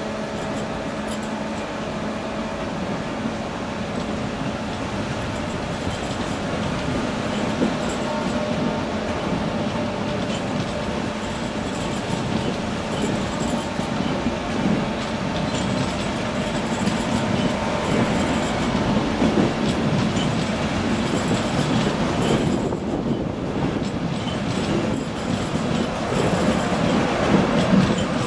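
Mark 4 passenger coaches of an InterCity 225 train rolling past as it pulls out, with steady wheel-on-rail noise growing louder as it gathers speed.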